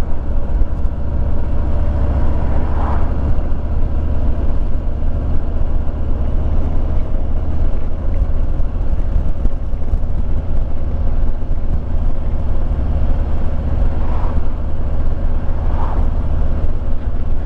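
Harley-Davidson Street Glide's V-twin engine running steadily while riding at road speed, mixed with heavy wind buffeting on the microphone.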